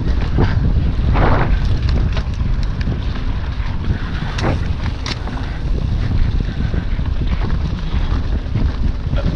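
Wind buffeting the microphone as a mountain bike is ridden fast along forest singletrack, over a steady rumble of tyres on the trail. Scattered sharp clicks and rattles from the bike run through it.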